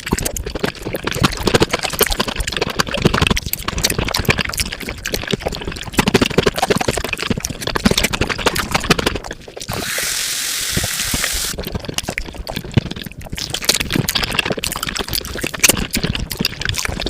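Wet eating sounds sped up fivefold: a dense, rapid run of chewing clicks and crackles. A steady hiss lasting about a second and a half cuts in a little past the middle.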